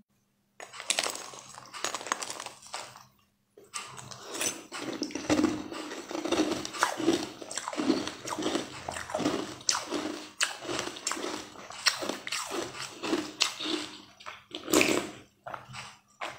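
Close-mic chewing of jelly balls and ice cream: crisp crunchy clicks and wet squelches, with bites coming about twice a second. Near the end a louder slurp as the green liquid is sipped from the bowl.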